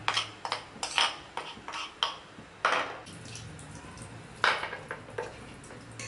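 A metal spoon clinking and scraping against a glass plate while stirring wet flour batter: a quick run of taps over the first three seconds, then another cluster about four and a half seconds in.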